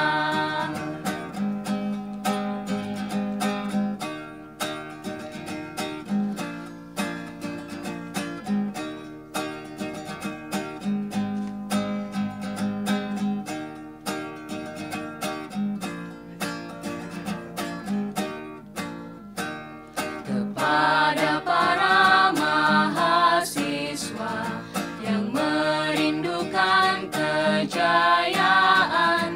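Background music: an instrumental passage of the song between sung verses, plucked strings keeping a steady pattern. About two-thirds of the way through, a louder, wavering melody line comes in over them.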